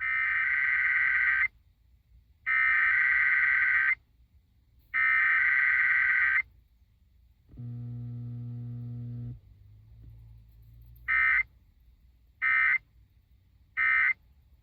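Emergency Alert System SAME data tones from a car radio's speaker: three long warbling header bursts about a second and a half each, then a low buzzing tone for about two seconds, then three short end-of-message bursts near the end.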